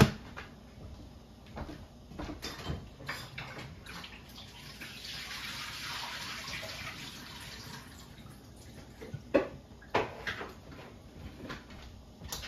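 Kitchen water running for about three seconds near the middle, amid scattered clinks and knocks of pots and utensils.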